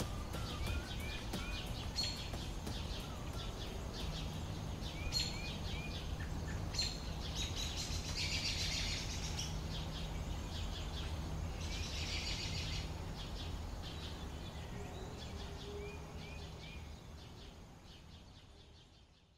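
Outdoor ambience with small birds chirping repeatedly in short high calls and a steady low hum, broken by two brief buzzy bursts about eight and twelve seconds in; it fades out near the end.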